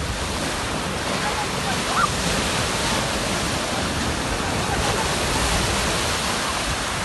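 Sea surf washing continuously onto the beach in a steady loud rush, with faint distant voices under it.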